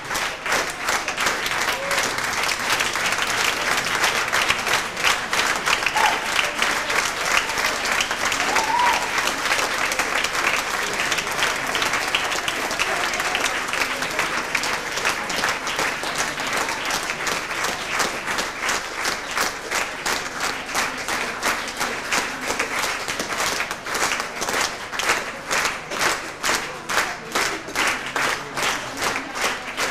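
Theatre audience applauding a curtain call: dense, sustained clapping, which settles into a more even, rhythmic beat in the last few seconds.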